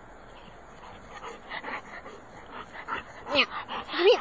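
Yellow Labrador retriever making a run of short, quick sounds, then two short whines near the end, the second louder.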